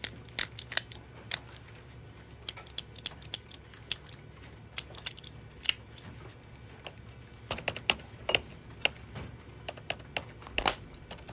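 Sharp, irregular clicks in short groups from a retractable ballpoint pen being clicked in Morse code.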